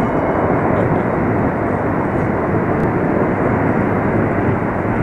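Engines of a four-engine Antonov An-124 cargo jet, a steady loud rush of engine noise as it comes in low over the runway to land.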